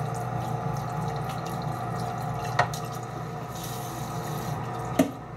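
Kitchen faucet running water into a stainless steel pan in the sink as the pan is rinsed off. Two sharp knocks stand out, about two and a half seconds in and again near the end.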